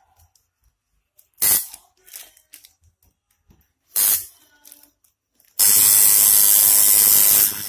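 Two short hissing bursts, then an electric tattoo machine starts with a steady loud buzz about two seconds before the end.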